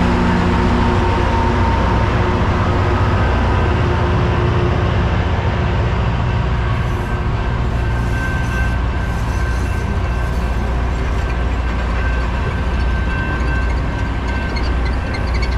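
LORAM rail grinder train passing close by: its diesel power cars run with a steady, heavy low rumble as the cars roll over the rails. A thin steady high whine sits over it through the second half.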